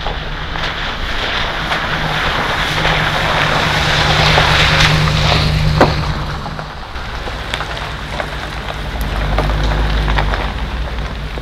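Converted shuttle bus driving past on a wet gravel road: its engine hums steadily under the crunch and hiss of tyres on gravel, loudest as it passes about five seconds in, with scattered ticks of stones under the tyres. It swells again near the end as the bus rolls over rocky ground.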